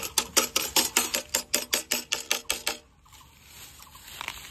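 Rapid, even metallic tapping of a blade against a metal pot, about six taps a second, each tap ringing briefly; the tapping stops about three seconds in.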